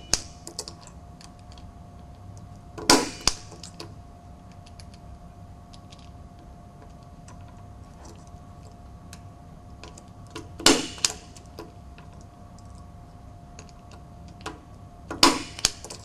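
Punch-down tool pressed onto the pins of an RJ45 female jack, snapping with a sharp click each time it seats a Cat-5 wire in the contact. Three clicks: one about three seconds in, one near the middle and one near the end, with faint handling ticks between.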